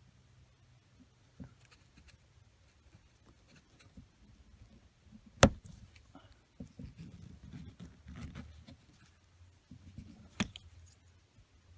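Water pipes creaking as hot water runs through them: a sharp crack about five and a half seconds in, irregular low crackling after it, and another sharp crack near the end.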